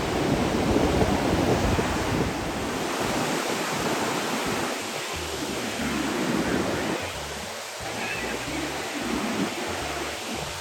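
Ocean waves breaking in heavy surf, with wind buffeting the microphone. The crash is loudest in the first two or three seconds, then eases into a softer wash.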